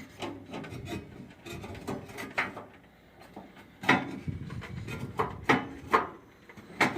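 Metal cover of a Lennox G12 gas furnace being handled and set back in place: scraping and rubbing with a string of sharp knocks.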